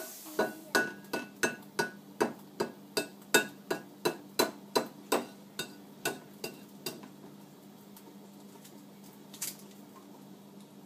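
Light, even tapping on kitchenware with a short ring, about three taps a second, growing fainter over some six seconds, then one more tap a couple of seconds later. A faint steady hum underneath.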